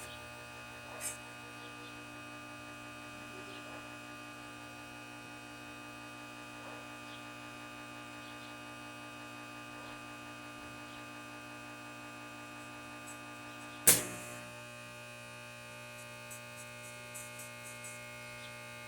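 Stick-welding machine humming steadily at idle, a mains-frequency transformer hum. There is a small click about a second in and one loud sharp crack near the end, followed by a few faint ticks.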